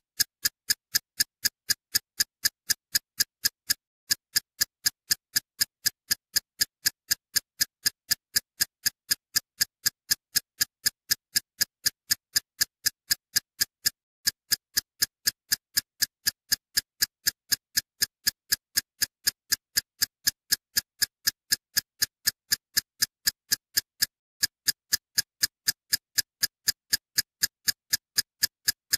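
A background track of sharp, even ticks, about three a second, like a clock or metronome, with a short gap about every ten seconds.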